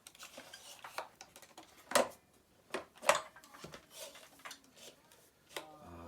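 Clicks and knocks of parts being handled as a stretched belt and carpet-fluffer brush roll are fitted into a Kirby Classic vacuum, with two sharper knocks about two and three seconds in.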